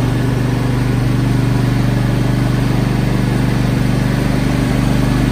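Sears Craftsman riding lawn mower's engine running at a steady speed, heard close up from the mower's seat.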